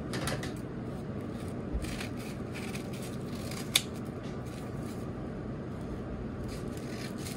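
Scissors snipping through a folded stack of parchment paper, a series of short cuts with one sharp click about four seconds in, over a steady low background hum.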